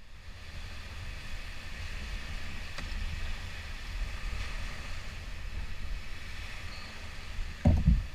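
Wind rumbling on the microphone over the wash of open water around a kayak, steady throughout, with one brief low thump near the end.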